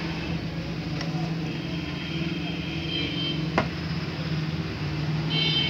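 Steady low mechanical hum, with a single sharp tap about three and a half seconds in.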